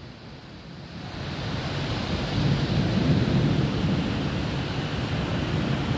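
Heavy rain with a low rumble that swells over the first few seconds and then holds steady.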